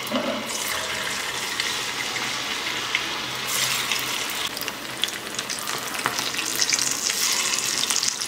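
Chicken 65 pieces deep-frying in hot oil in a cast-iron kadai: a steady, hard sizzle and bubbling, dense with fine crackles. The sizzling gets louder about three and a half seconds in and again near the end.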